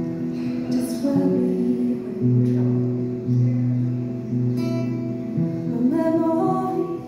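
A woman singing to her own acoustic guitar, with long held notes over plucked and strummed chords.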